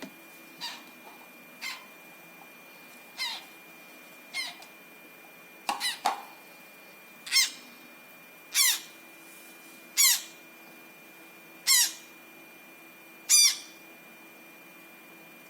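Newly hatched African grey parrot chick giving short, high begging peeps while being hand-fed. There are about a dozen, one every second or so, growing louder toward the end.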